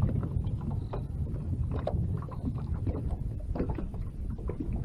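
Wind rumbling on the microphone over small waves lapping and slapping against the side of a small metal boat, with scattered light splashes and knocks.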